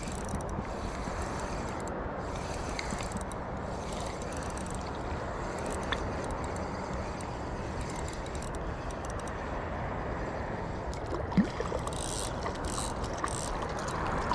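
Spinning reel being cranked steadily to wind in line, its gears and rotor running, with a short knock about eleven seconds in.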